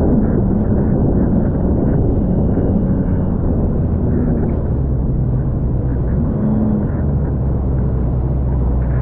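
Jet ski engine running steadily at speed, with the rush of water and spray off the hull as it crosses choppy water.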